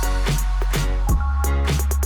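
Electronic background music with a heavy sustained bass and a steady drum beat, about two beats a second.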